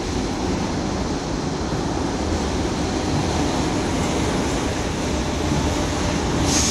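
Rodalies commuter electric train pulling into an underground station platform, a steady rumble of wheels and running gear as the carriages slide past. A higher hiss rises near the end.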